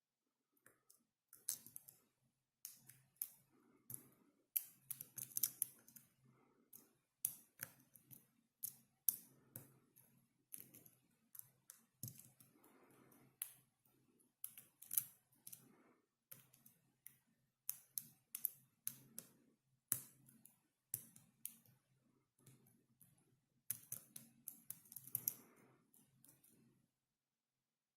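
Dimple pick working the pins of an ISEO R6 dimple euro cylinder: quiet, irregular metallic clicks, a few a second, with faint scraping as the pins are pushed and set. The clicking stops near the end.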